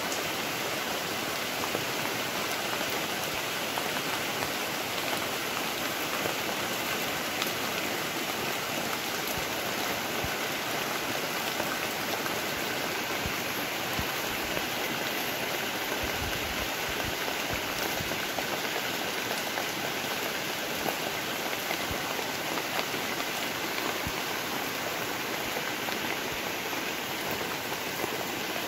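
Rain falling steadily on the broad leaves of banana plants, an even unbroken hiss with faint scattered drop ticks.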